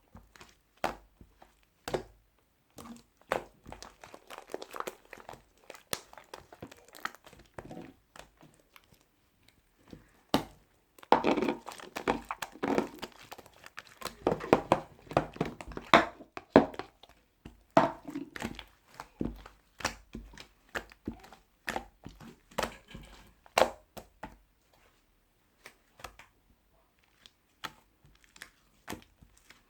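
Crinkling and rustling of something being handled, with many short, sharp clicks and knocks; busiest around the middle, sparser at the start and end.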